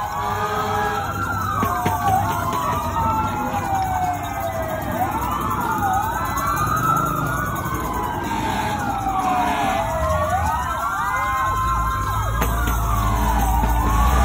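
Several emergency-vehicle sirens wailing at once, their slow rising and falling sweeps overlapping. A low engine rumble from a passing pickup grows in near the end.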